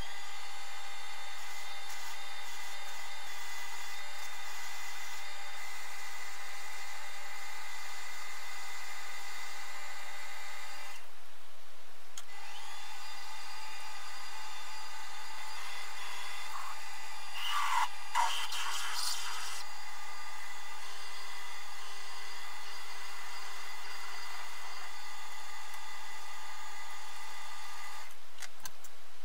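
Optimum mini lathe running with a steady whine while drilling into the end of a spinning metal workpiece from the tailstock chuck. The whine breaks off briefly about a third of the way in. A short burst of cutting noise comes a little past halfway.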